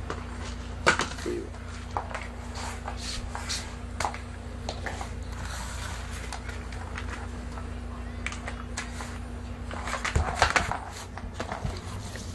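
A few scattered light knocks and clicks, the sharpest about a second in and a denser cluster near the end, over a steady low hum.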